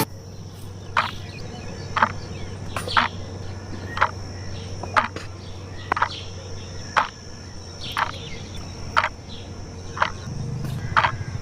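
Sharp taps, about one a second, over a steady low hum and a faint high-pitched whine.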